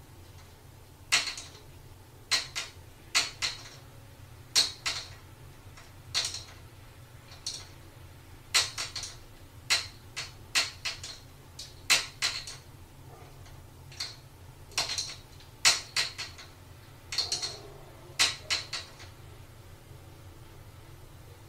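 Cupboard doors clacking and rattling against a plastic child lock as kittens paw and pull at the knobs: sharp, irregular knocks, often in quick pairs or threes, over and over.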